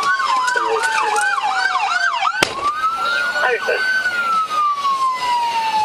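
Several police car sirens sounding at once: one in a slow rising-and-falling wail, another in a fast warbling yelp for the first couple of seconds. A single sharp click cuts through about two and a half seconds in.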